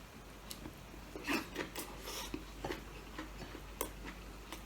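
Faint eating sounds: scattered soft clicks and rubbing of food and utensils, with a few brief louder scrapes.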